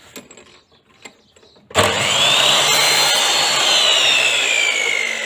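A few light clicks, then about two seconds in a TOTAL 10-inch 1800 W sliding mitre saw switches on. Its motor and blade run loud and steady, with a whine that climbs quickly as it spins up and then slowly sinks in pitch.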